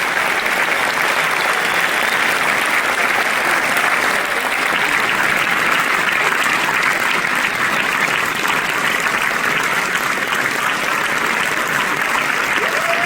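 Large audience applauding in a steady, dense ovation.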